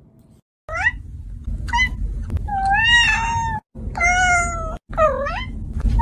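A long-haired cat meowing loudly at the camera about six times, short meows at first, then two long drawn-out ones, then shorter dipping ones.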